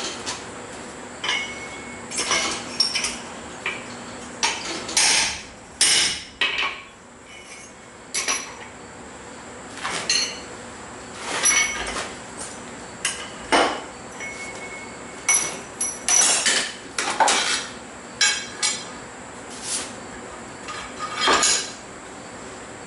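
Blacksmith's hammer striking hot steel on an anvil, irregular blows, some in quick pairs with pauses between, a few leaving a short metallic ring.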